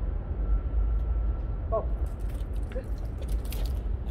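Steady low rumble of city street noise, with a few light clicks and scrapes in the second half.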